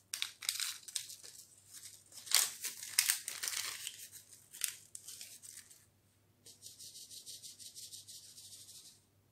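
A baking-powder packet crinkling as it is shaken out into a metal mesh sieve. Then, for the last few seconds, the sieve is shaken quickly, and dry powder hisses through the mesh in a fast, even rhythm.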